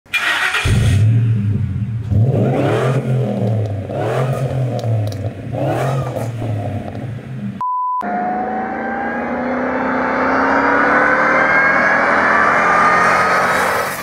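Supercharged V8 of a Ford F-150 Harley-Davidson pickup idling with three short throttle blips, then accelerating hard with a whine that rises steadily in pitch. A brief steady beep sounds in a short silent gap between the two.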